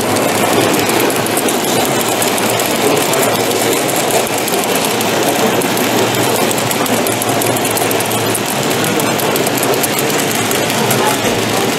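Model train running along layout track: a steady running noise with fast clicking of the wheels over the rail joints.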